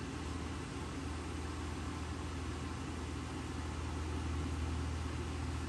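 Steady low hum with an even hiss behind it, unchanging throughout: background room noise, with no handling sounds.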